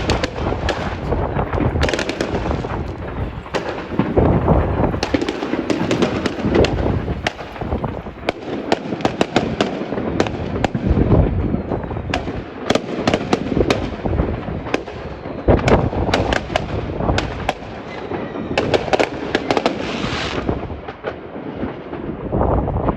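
Many fireworks going off at once across the city: a dense, continuous barrage of bangs and crackles over a steady rumble of distant explosions.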